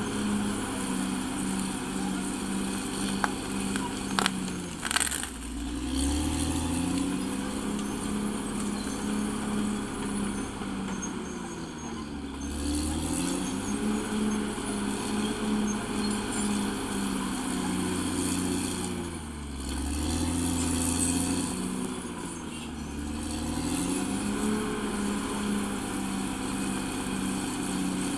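CAT D6R XL bulldozer's diesel engine running hard, its pitch sagging and climbing back four times as the load comes on and off. There are a few sharp knocks about four to five seconds in.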